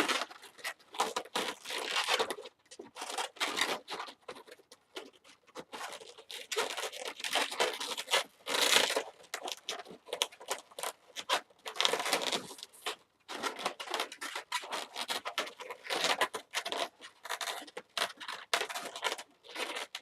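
Latex 260 modelling balloons rubbing against each other and the hands as they are twisted and locked together, a dense run of irregular short scrubbing bursts.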